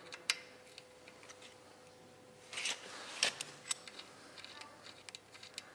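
Faint clicks and scrapes of a screwdriver turning the small bleed screw out of the oil filter cover on a Yamaha SR500 engine, with a couple of brief scratchy sounds near the middle.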